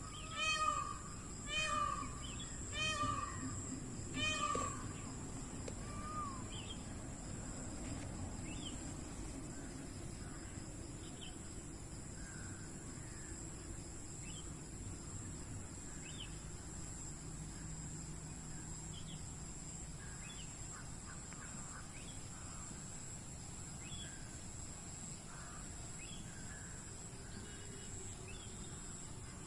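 Peacock calling: about five short calls, each arching up and then down in pitch, roughly a second apart in the first six seconds. Faint chirps of small birds follow over a steady high-pitched tone and a low background hum.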